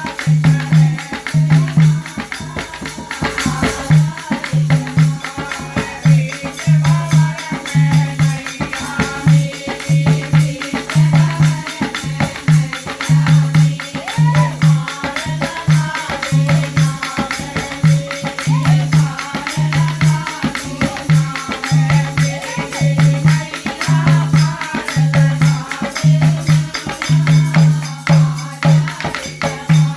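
Haryanvi folk bhajan music: a steady pulsing bass beat, about one and a half beats a second, under jingling percussion and a wavering melody.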